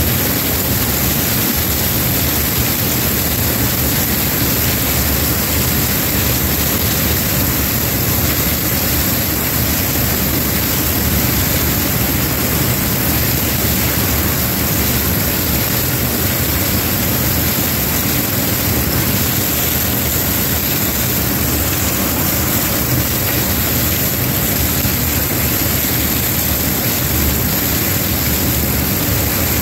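Combine harvester running steadily while harvesting corn: an even drone of engine and threshing machinery.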